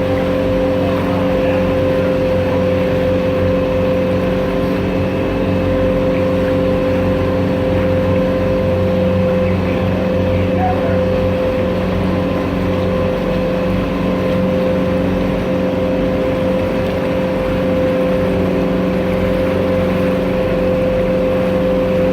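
Water taxi's engine running steadily under way, heard from on board: a constant hum with an even, unchanging pitch over the wash of the hull.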